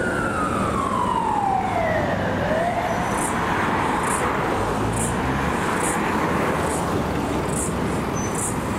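Emergency vehicle siren in wail mode, falling in pitch over about two seconds and then cutting off after a short upturn. Steady road traffic and idling engines carry on underneath.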